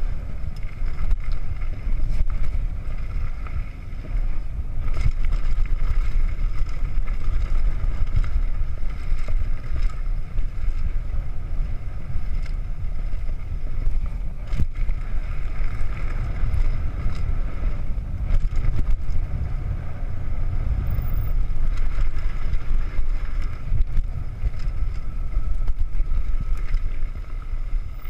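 Downhill mountain bike rolling fast over a dirt trail: steady wind rumble on the microphone with tyre noise underneath, and a few sharp knocks as the bike hits bumps.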